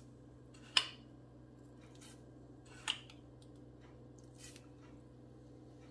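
A metal spoon scoops brown sugar from a glass bowl and clicks against it twice, sharply, about a second in and just before three seconds, with a fainter tap later. A steady low hum runs underneath.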